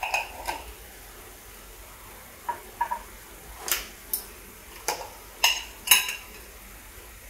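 Metal kitchenware clinking off-camera: about nine light, separate clinks and taps of spoons and spice containers, spread irregularly. Underneath, masala fries with a faint sizzle in a pan on a low flame.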